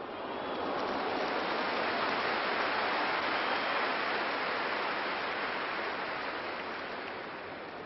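Large stadium crowd reacting to a shot at goal: a mass of voices that swells suddenly, holds for a few seconds, then slowly dies away.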